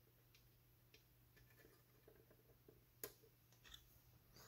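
Near silence, broken by a few faint ticks and one sharper click about three seconds in, from metal tweezers handling a small piece of steel mesh against a plastic box hinge.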